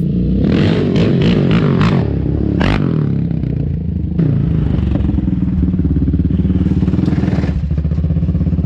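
Yamaha Raptor 700R ATV's single-cylinder engine running through an aftermarket Monster exhaust, ridden at low speed: it revs up and down in the first couple of seconds, then runs with a steady pulsing note. A single sharp clack about two and a half seconds in.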